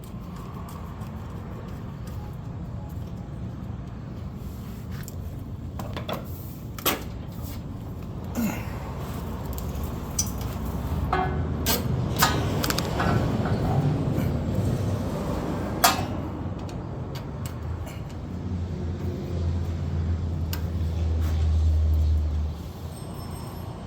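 Scattered clicks and metallic knocks from hand work on a riding mower's throttle and choke cable linkage, over a steady low rumble that swells for a few seconds near the end.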